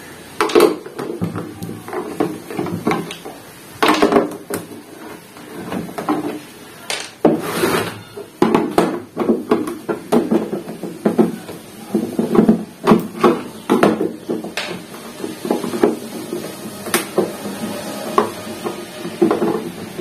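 Screwdriver backing screws out of a CRT television's plastic back cover, with scattered clicks and plastic knocks as the tool and hands work the casing, over music.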